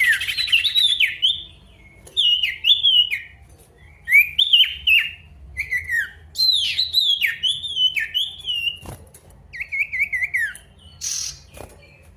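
Male sirtu singing in energetic, loud song as a lure that calls out rivals: short phrases of sharp notes, each sweeping steeply down in pitch, repeated every second or two. Near the end comes a wavering run of quick notes, then a short harsh burst.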